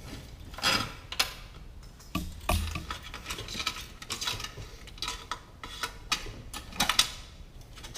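Seat upholstery being worked back off a truck seat's metal spring frame by hand: irregular rustling of the cover with scattered clicks and clinks of the springs and frame.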